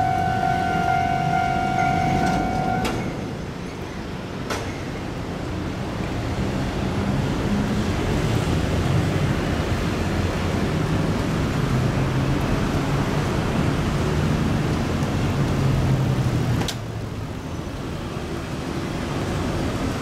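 A railway level-crossing warning bell rings steadily and stops about three seconds in. Road traffic follows, with cars and a bus engine passing, and the level drops suddenly near the end.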